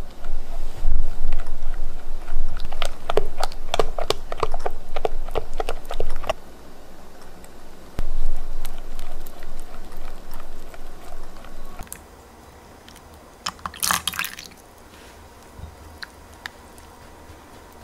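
Silicone spatula stirring thick cream-cheese batter and egg in a glass bowl: wet squelching strokes with quick clicks, fast and busy for the first six seconds, then slower stirring until about twelve seconds in. After that it is mostly quiet, apart from a short rushing hiss at about fourteen seconds.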